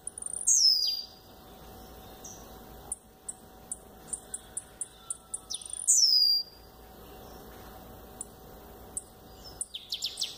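Blue-black grassquit (tiziu) singing: two loud, short, falling calls about five seconds apart, between them a steady run of quick high chips, and a rapid cluster of notes near the end.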